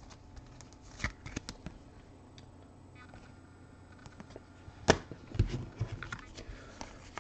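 Trading cards being handled on a table: light rustles and flicks of the cards, with one sharper click about five seconds in.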